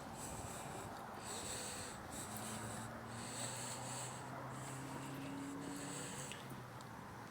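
Breathing, a breathy hiss repeating about once a second, over a low steady hum that comes in about two seconds in.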